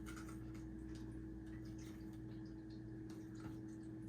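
Faint, scattered light clicks and taps from a small hand-operated garlic dicer being loaded with cloves, over a steady low hum.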